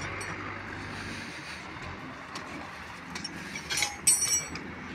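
Metal track gauge bar set down across the rails near the end, a brief cluster of metallic clinks with a short ring, over a steady outdoor background hiss.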